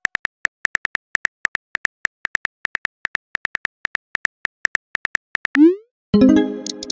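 Simulated phone keyboard tap clicks from a texting-story app, a rapid, uneven run as a message is typed. Near the end comes a quick rising swoop as the message is sent, followed by a ringing tone that fades.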